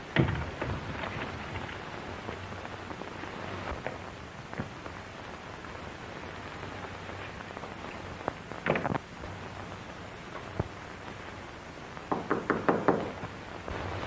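Knocking on a door: a quick run of raps about twelve seconds in, with a shorter knock about nine seconds in and a thump at the very start. Under it runs the steady hiss and crackle of an old film soundtrack.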